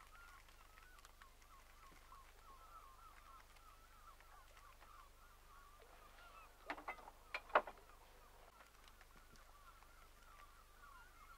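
A flock of birds calling faintly and continuously in a dense chatter. A few louder, sharper calls come close together about seven seconds in.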